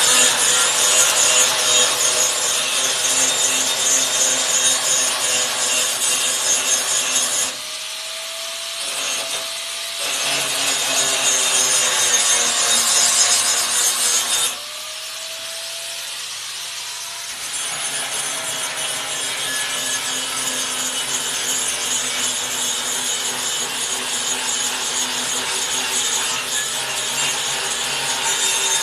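Angle grinder grinding steel with a steady, harsh rasp. It is eased off the work twice for a couple of seconds, when the grinder's motor whine shows through on its own.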